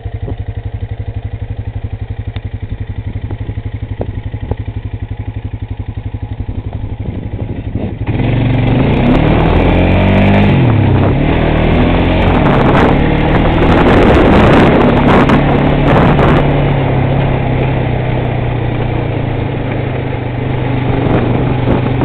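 Honda Rancher ATV's single-cylinder engine idling with an even, rapid pulse; about eight seconds in it turns much louder, with the revs rising and falling for a few seconds before running on loud.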